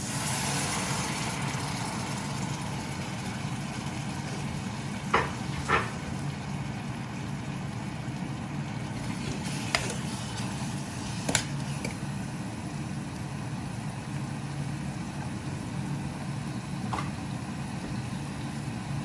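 Curry pan cooking on the stove over a steady low hum, with a spoon knocking against the pan a few times, twice in quick succession about five seconds in.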